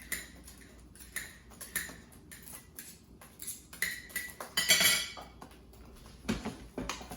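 Kitchen knife cutting a habanero chilli on a chopping board: irregular taps of the blade on the board, with a louder scraping clatter about two-thirds of the way through.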